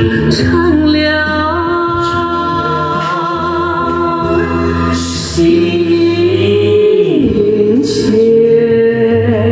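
A man and a woman singing a duet into handheld microphones over backing music, holding long notes.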